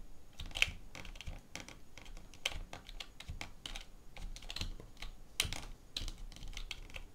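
Irregular tapping and clicking of computer keyboard keys, a few strokes a second with short gaps.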